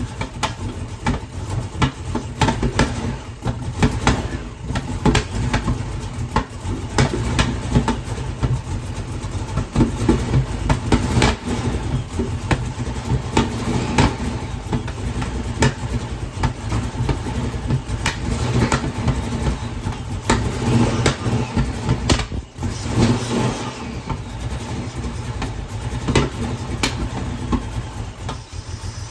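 Chrysler Hemi 265 straight-six on Delco fuel injection idling roughly, its steady drone broken by irregular sharp pops and uneven surges: a rough, unstable idle.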